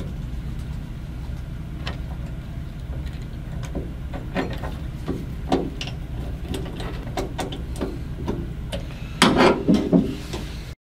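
A screwdriver working a screw at the sheet-metal mounting bracket of a boiler's control transformer, with light scattered clicks and scrapes of metal and wire handling over a steady low hum. There is a short burst of louder clatter near the end.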